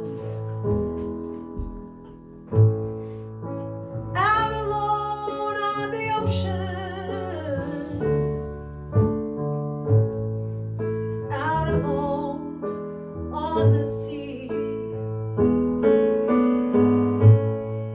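Live song: piano and a low bass line playing, with a woman's singing voice coming in about four seconds in, in phrases with vibrato.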